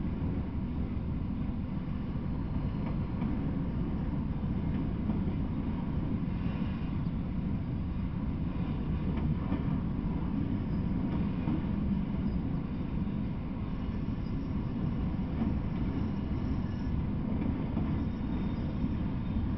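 Freight train of autorack cars rolling past, a steady low noise of steel wheels on rail with no pauses or distinct clanks.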